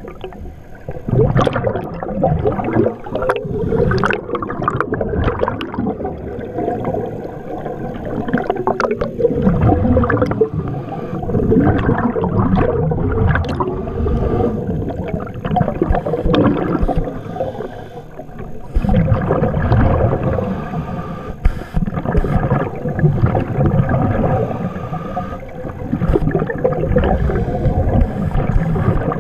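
Muffled underwater water noise heard through a submerged camera: gurgling and sloshing that swells and fades every few seconds, with scattered faint ticks.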